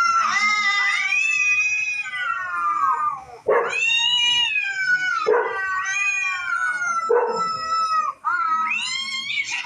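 Cats-fighting sound effect playing: cats yowling in about five long, wavering, drawn-out calls, each sliding down in pitch, with short breaks between them.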